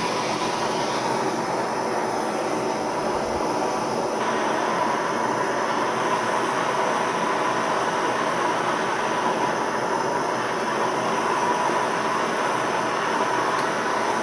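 MAPP gas hand torch burning with a steady rushing flame, heating a slip-joint folding knife's spring to harden it.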